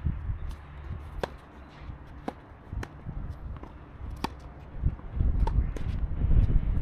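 Tennis rally: sharp pops of a ball being struck by rackets and bouncing on the court, about once a second, the loudest one about four seconds in as the near player hits. A low rumble grows louder in the last two seconds.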